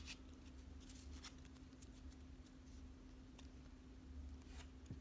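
Near silence, with a few faint, scattered clicks and crinkles of a foil Pokémon booster pack being handled and opened, over a faint steady low hum.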